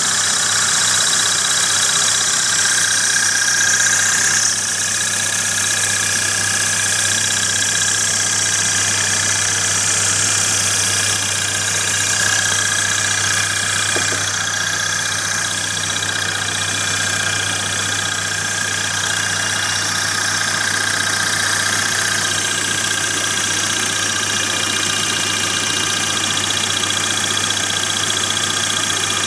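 A Kia Sportage's 2.0 SOHC four-cylinder engine idling steadily while driving a belt-mounted York 210 air compressor, with a steady high whine over the engine hum. It gets slightly quieter about four seconds in.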